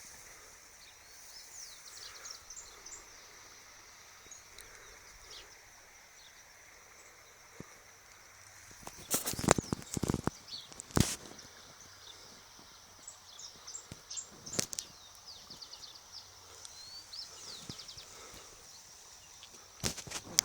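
Outdoor ambience of birds chirping over a steady high hiss, with a few loud sharp knocks: a cluster about halfway through, another a few seconds later and one near the end.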